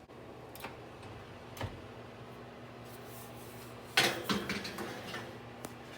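Faint kitchen handling sounds: a few light clicks, then a sharper clatter of utensils and dishes about four seconds in.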